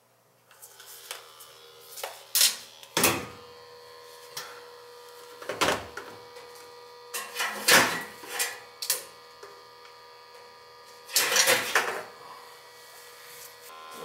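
Sharp knocks and clatters from a combustion analyser and its probe hose being handled and hung on a gas boiler, about eight in all, the loudest about two and three seconds in and near eight and eleven seconds. Under them, a steady hum with several held tones starts about half a second in.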